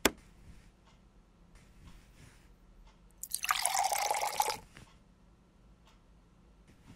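A sharp click at the start, then from about three seconds in a pour into a ceramic mug lasting about a second and a half, a dense run of tiny patters.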